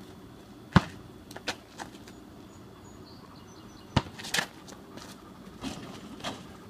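A basketball thumping on an asphalt driveway and being caught, several irregularly spaced thumps, the loudest about a second in.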